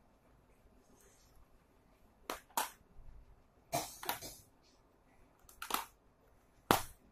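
Sharp clicks and clacks of coloured pencils being handled and knocked against a plastic pencil case, about six in irregular succession, the loudest near the end.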